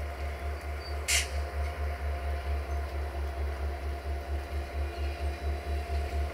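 Class 65 (EGM621) diesel locomotive with a General Motors engine running at low revs, a steady low throb at about five beats a second. A short hiss comes about a second in.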